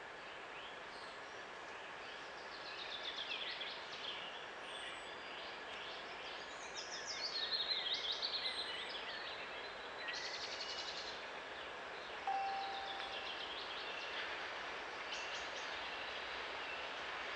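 Songbirds singing in woodland: rapid trills and chirping phrases, several overlapping, over a faint steady background hiss. A brief steady whistle-like tone comes in about twelve seconds in.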